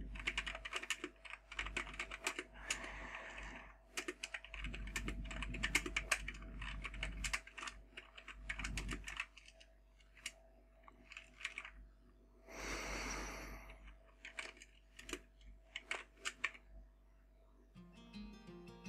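Typing on a computer keyboard: a run of quick key clicks in irregular bursts, with a short hiss-like noise about two-thirds of the way through. Near the end, plucked guitar music starts.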